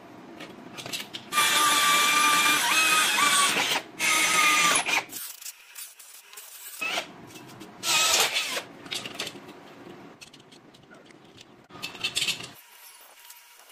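Electric hand drill boring through a steel plate, running in two spells of a few seconds each with a motor whine that wavers in pitch, then a shorter burst about two-thirds of the way through. Short metallic clattering near the end.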